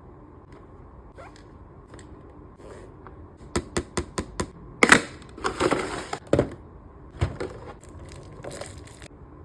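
Nendoroid figure packaging being handled and opened. A quick run of sharp clicks comes about halfway in, then a loud crackle and a few seconds of crinkling and rustling, one more click and a last brief rustle.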